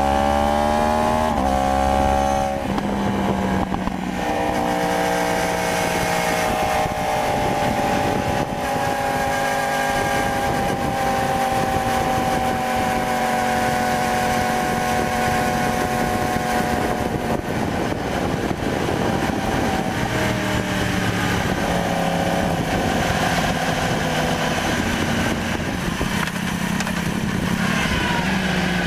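2015 Yamaha R1's crossplane inline-four engine under way, heard from on the bike. It rises in pitch at first and drops briefly about two and a half seconds in. It then holds a long, steady note that sinks slowly, with a few more rises and falls in the last ten seconds, over a rushing wind noise.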